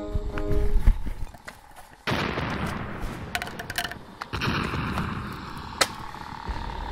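Electronic lightsaber sound effects from lightsaber-shaped barbecue tongs: a sudden switch-on burst about two seconds in, then a crackling hum with a steady tone under it, with a sharp crack near the end.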